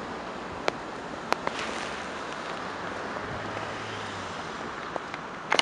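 Steady outdoor hiss of wind on the microphone and a faraway freight train, broken by several sharp clicks: a few in the first second and a half and two more near the end.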